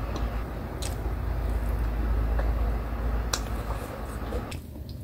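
A low rumble that cuts off abruptly near the end, with a few soft clicks of someone chewing a fried fish cake.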